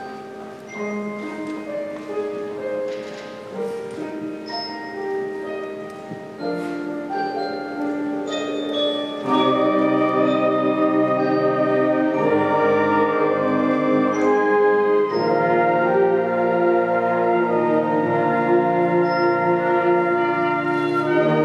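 Slow orchestral music: sparse mallet-percussion notes over soft held tones, then about nine seconds in it jumps louder into full sustained chords with brass.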